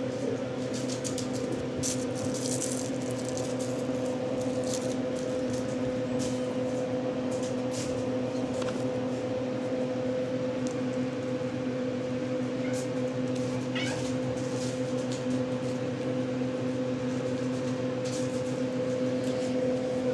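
Kittens moving about on a table: scattered light rustles and clicks and a faint short mew about two-thirds of the way through, over a steady low hum.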